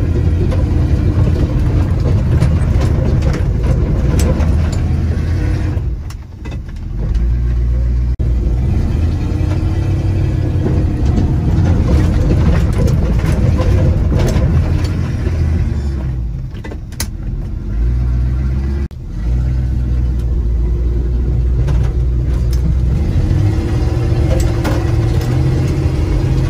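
Chevy K20 pickup's 350 V8 engine, heard from inside the cab, revving and easing off as the plow truck drives into and pushes snow. The engine eases off twice, around a quarter of the way in and again around two-thirds through, and a single sharp knock comes about two-thirds through.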